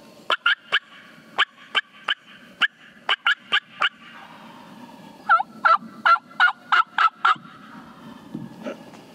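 Wild turkey calling, close by: a run of about a dozen short, sharp cutting notes, then after a short pause a series of about seven yelps in an even rhythm.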